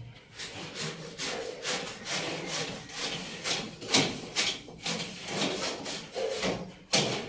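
Repeated scraping strokes by hand, uneven, about two a second, with a sharper, louder stroke near the end.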